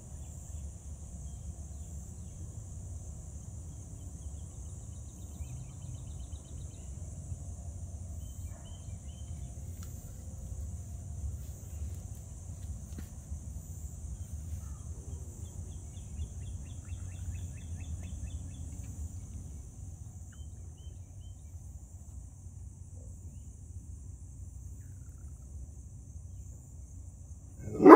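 Steady high-pitched insect chorus over a low outdoor rumble, with a few faint quick runs of bird-like ticks. A dog barks once at the very end.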